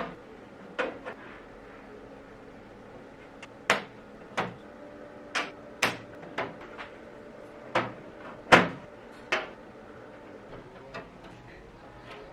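Irregular sharp knocks and clicks from hand work on parts, about a dozen spread unevenly, the loudest about eight and a half seconds in.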